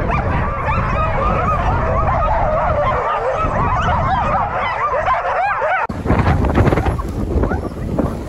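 A yard full of sled dogs (huskies) yelping, whining and yipping together in an excited clamour, many voices overlapping. About six seconds in, the sound cuts to a rougher rushing noise from the moving sled team, with scattered yips still in it.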